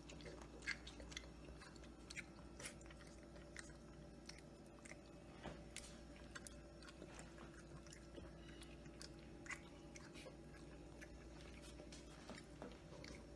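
Faint, irregular wet mouth clicks of a puppy licking and lapping at water in a steel bowl, over a low steady hum.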